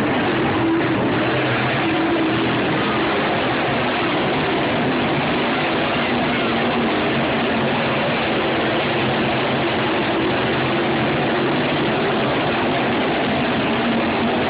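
A field of dirt-track race cars running laps on a clay oval, their engines blending into a steady, dense drone.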